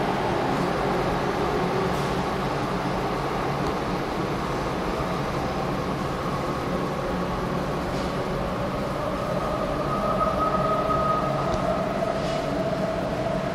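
Steady rumble of a train running in the subway tunnel, echoing across the underground platform, with a faint whine that rises slightly in pitch in the second half.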